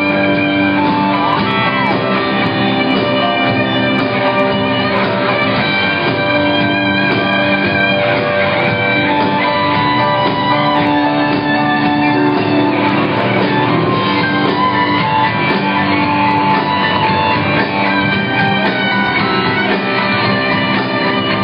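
Live rock band playing loudly and without a break, electric guitar to the fore, heard from within the crowd through a phone's microphone.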